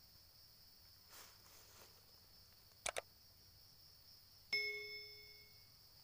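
Edited-in subscribe-button sound effect: a quick double mouse click about three seconds in, then a bright bell ding a second and a half later that rings out for about a second. Under it, insects drone steadily.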